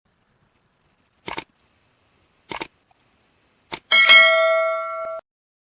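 Three short, sharp clicks about a second apart, then a bell-like chime that rings for about a second and cuts off suddenly.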